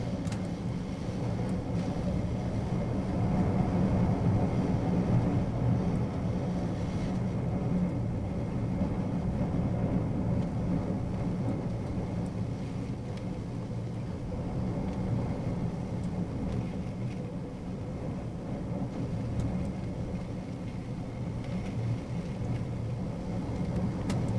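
Steady low rumble of storm-force wind and heavy sea, heard from inside a cruise ship cabin through the window glass, swelling a few seconds in and easing later.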